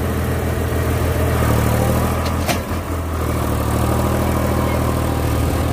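Tractor diesel engines running steadily under load while one tractor tows another, stuck, out of deep mud. There is one sharp click about two and a half seconds in.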